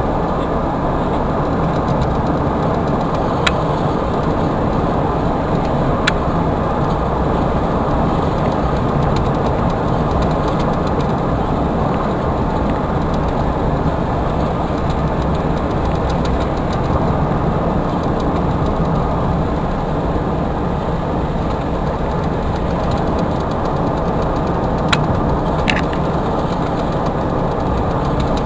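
Steady engine and road noise of a vehicle driving, with a few faint clicks.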